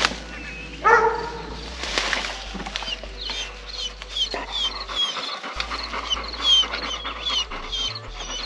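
Bear hounds penned in a dog box panting and whining, eager to be turned loose. A rising whine comes about a second in, followed by a string of short, high, falling whines.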